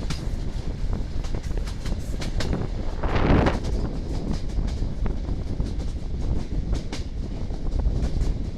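Passenger train coaches rolling along jointed track, the wheels clattering over the rail joints in short sharp clacks over a steady rumble, with a brief louder rush about three seconds in.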